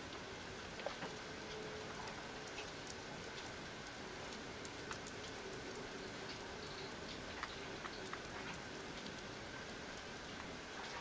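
Faint, steady hiss with scattered small clicks and ticks: possums chewing and lapping at food in a dish.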